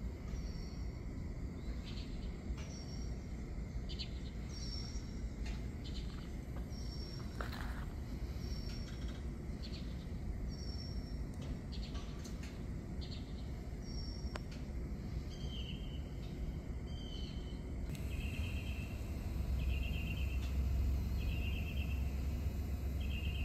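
Freight train rolling slowly past with a steady low rumble that grows in the last few seconds, under a short high chirp repeating about once a second. Near the end the chirps drop lower and come in quick groups.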